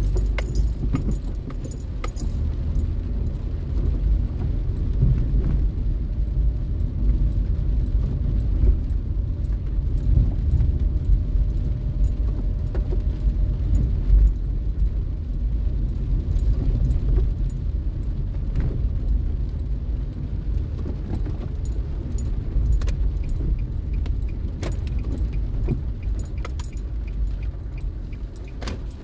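Car cabin noise while driving on a rain-wet street: a steady low rumble of engine and tyres on wet asphalt, with scattered light ticks and rattles on top.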